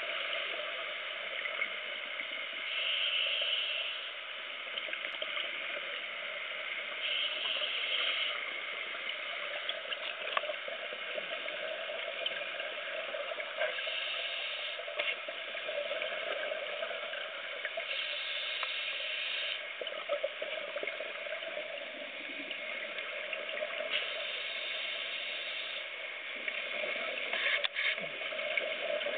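Underwater sound of a scuba diver breathing through a regulator: a hiss comes and goes about every five seconds over a steady watery background, with a few faint clicks.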